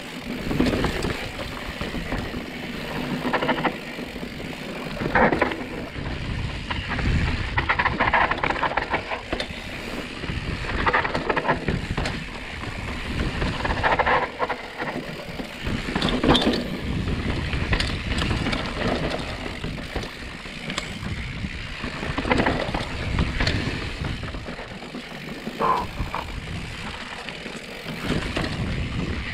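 Full-suspension mountain bike descending fast over rock slabs and dirt: a steady rolling noise from the tyres, broken by frequent irregular knocks and rattles as the bike goes over bumps.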